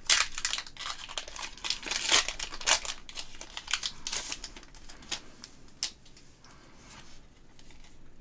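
Foil wrapper of a Pokémon card booster pack crinkling and tearing as it is ripped open: a dense run of sharp crackles, quieter after about five seconds.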